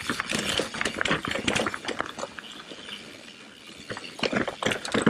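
Mountain bike clattering down a rocky trail: tyres crunching and knocking over rock and dirt, with the chain and frame rattling. Rapid, irregular knocks throughout, busier at the start and again near the end.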